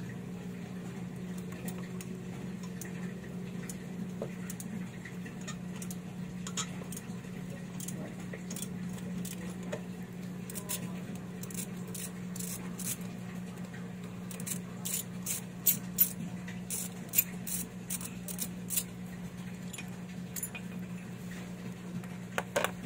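Scattered small clicks and light clinks of hands handling a motorcycle's freshly removed body panel and its fasteners, thickest in a quick run about two-thirds of the way through, over a steady low hum.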